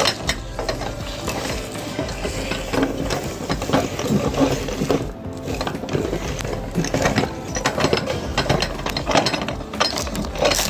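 Electric meat grinder running, its motor humming under a dense, steady crackle as something brittle is crunched through it.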